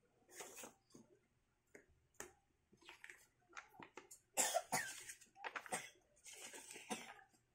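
Paper rustling in irregular bursts as a booklet-style instruction manual is taken from a cardboard box and its pages are flipped, with the loudest rustle about four and a half seconds in.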